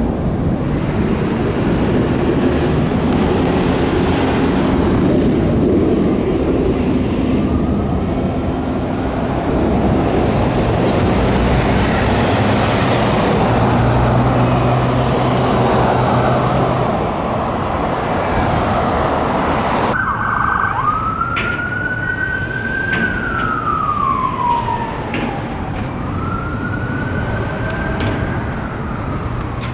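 Heavy road traffic with engines running. After an abrupt cut about two-thirds of the way through, an ambulance's Whelen electronic siren wails in slow rising and falling sweeps.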